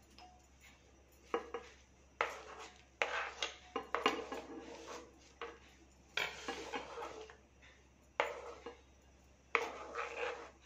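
Cut strawberries being scraped off a plastic chopping board into a ceramic bowl: about seven short bursts of scraping and light knocks of the board on the bowl, with quiet gaps between.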